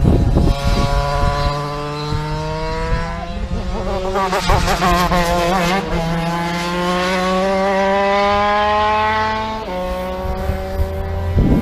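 Two-stroke racing kart engine running at high revs. Its pitch climbs slowly, wavers for a couple of seconds midway, climbs again and drops suddenly near the end.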